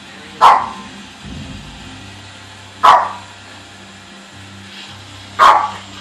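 Small dog barking at a running Roomba robot vacuum: three sharp yaps, a couple of seconds apart, over the robot's low, steady hum.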